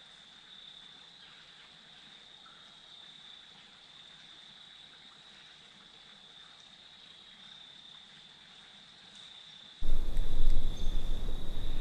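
Quiet woods with a steady high-pitched trill and faint hiss. About ten seconds in, a loud low rumbling noise cuts in abruptly.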